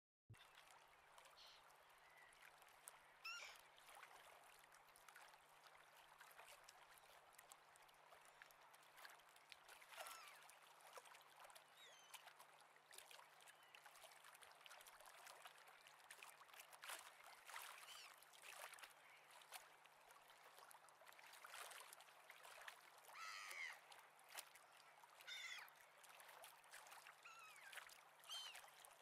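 Faint bird calls, short chirps that slide in pitch, scattered every few seconds over a soft steady hiss.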